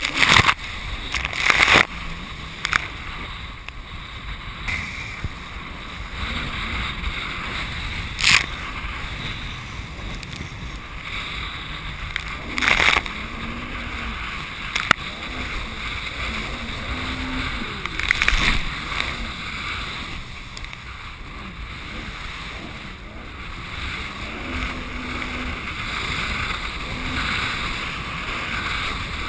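Jet ski running fast through choppy sea, heard from a camera mounted on the hull: a steady rush of water, spray and motor. A handful of sharp slaps cut through it as the hull hits waves and spray bursts over it, the loudest near the start.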